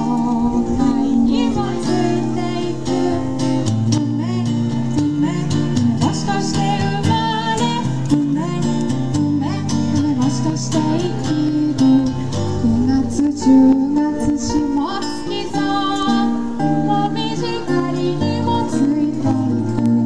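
A woman singing into a microphone, accompanied by an acoustic guitar, amplified through PA speakers.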